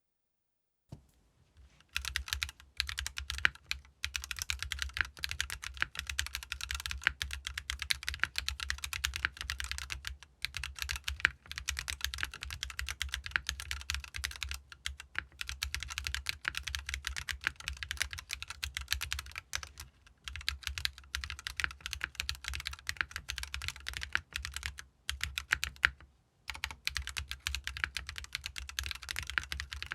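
Typing on a GEON F1-8X mechanical keyboard fitted with Tecsee RAW switches, an aluminium plate, O-ring mount, no foam and DMK Vintage ABS double-shot keycaps. It is a fast, continuous stream of key clicks that starts about a second in and breaks off briefly a few times.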